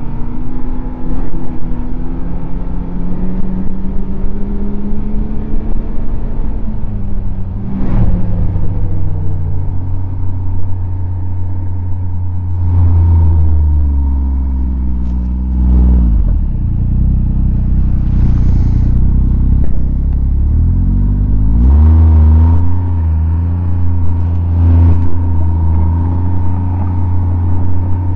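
Snowmobile engine running at trail speed with a steady whine above it. The engine note falls about a quarter of the way in and again about halfway, then climbs back up past two-thirds through as the throttle opens.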